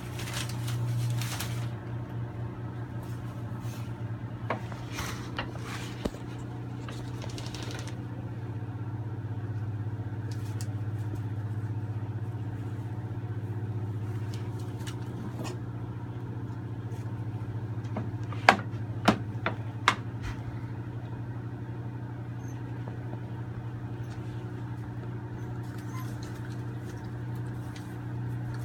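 A steady low mechanical hum, with scattered rustling of newspaper as puppies move about on it. About two-thirds of the way in come three sharp clicks in quick succession.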